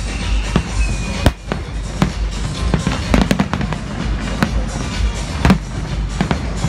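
Aerial fireworks shells bursting in an irregular string of sharp bangs, several close together about three seconds in and a loud one about five and a half seconds in, with music playing underneath.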